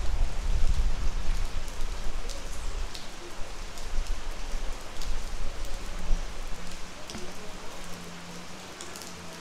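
Steady rain falling, with scattered sharper drops striking close by. A low rumble underlies the first half and eases off near the end.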